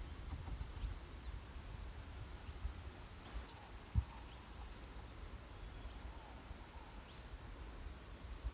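Outdoor forest ambience: small birds give short, high chirps every second or so over a steady low rumble. A single soft thump comes about four seconds in.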